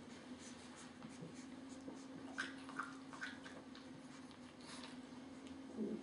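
Faint rustling and scratching of two-and-a-half-week-old French Bulldog puppies crawling over a soft blanket, over a steady low hum. A few short higher sounds come about two and a half to three and a half seconds in, and a brief low sound comes near the end.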